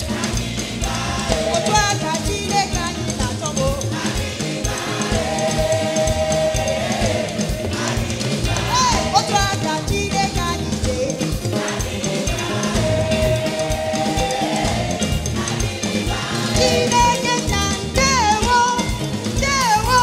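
Live African gospel praise music: a worship choir and lead singers singing an Igbo praise song over a steady drum-kit beat and band, with a solo voice singing winding runs near the end.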